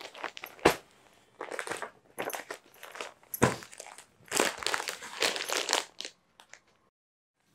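Clear plastic packaging on folded sarees crinkling and rustling in irregular bursts as the packets are picked up, shuffled and set down, with a couple of soft knocks. It cuts off suddenly about six seconds in.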